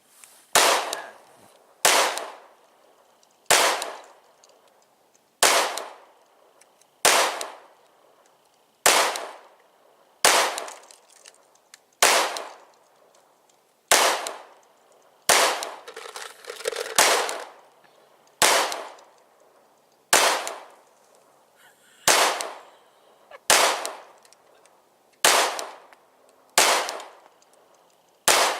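Pistol fired in slow, deliberate single shots, about eighteen of them, spaced roughly one and a half to two seconds apart, each with a short echoing tail.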